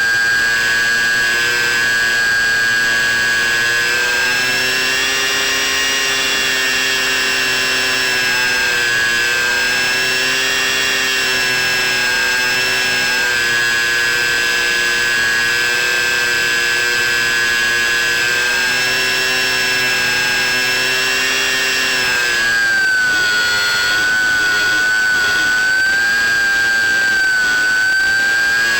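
Model plane's electric motor and propeller whining steadily in flight, its pitch drifting slightly and easing lower about three-quarters of the way through as the throttle comes back.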